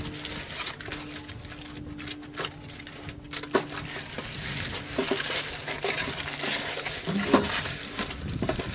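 Aluminium foil crinkling and crackling as it is folded and pressed by hand around a whole fish in a roasting pan, a continuous run of sharp little crackles.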